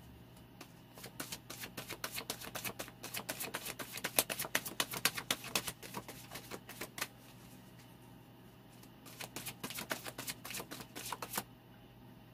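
A deck of tarot cards being shuffled: two runs of rapid, crisp card clicks, the first lasting about six seconds, the second a couple of seconds long after a short pause.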